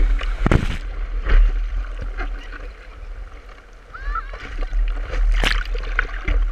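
Whitewater splashing around a surfboard close to the microphone, over a steady low rumble, with two sharp splashes: one about half a second in and another about five seconds in.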